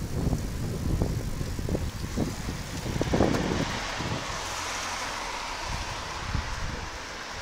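Wind buffeting the phone's microphone, a low rumble with some knocks. About four seconds in, a broad hiss rises.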